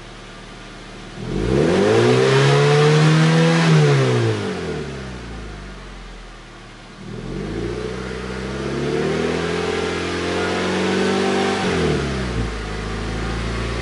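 A 2015 Mazda MX-5 (NC Miata) four-cylinder heard at the exhaust tip, fitted with a RoadsterSport Super-Q muffler and Helmholtz midpipe. It idles, is revved once about a second in and falls back to idle by about five seconds, then is revved again at about seven seconds and held up before dropping back near the end.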